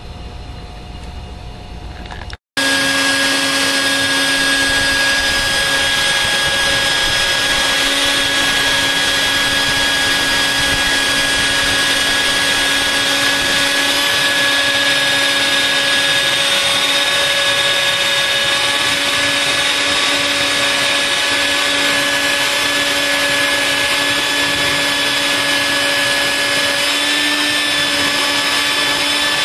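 Vacuum cleaner motor running steadily with a continuous whine. It cuts in abruptly about two seconds in.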